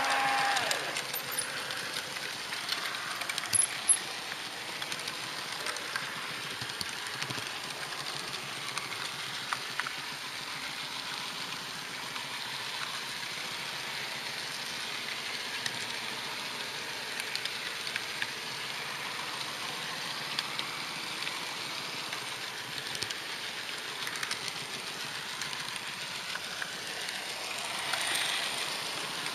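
HO-scale model train running along the track: a steady hiss with scattered small clicks, two sharper clicks about four seconds in, and a brief louder swell near the end.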